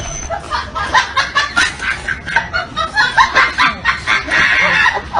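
Short, rapid bird calls, one after another.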